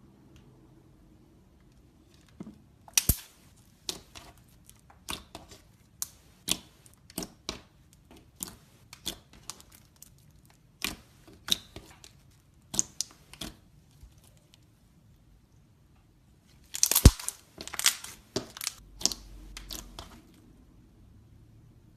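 Slime being pressed and pulled by hand, giving sharp crackling pops about one or two a second, then a denser run of crackles near the end.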